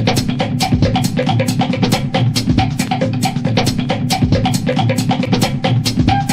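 Background music with a steady, fast drum beat over a bass line, about four drum hits a second.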